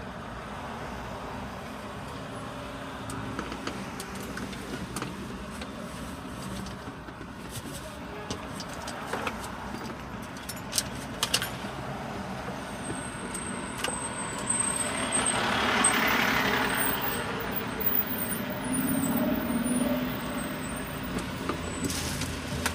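City street traffic rumble, with a motor vehicle passing close by about two-thirds of the way through, swelling to a hiss and fading. A few sharp clicks come before it.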